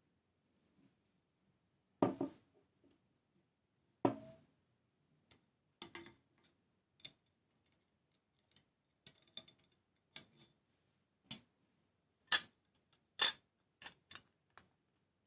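Irregular clicks and taps of small model-kit parts and tools being handled on a work surface, with two heavier knocks about two and four seconds in and a run of sharper clicks in the second half.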